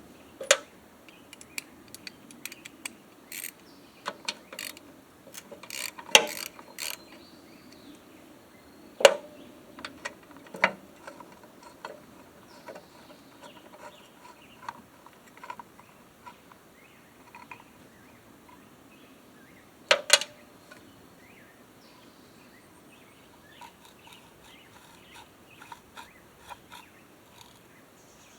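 Hand tools clicking and clanking on the mower's metal parts, with the ratchety clicks of a wrench, as the recoil starter is unbolted and taken off the push mower's engine. A handful of sharp, separate metal knocks stand out, the loudest about a third of the way in and near the middle.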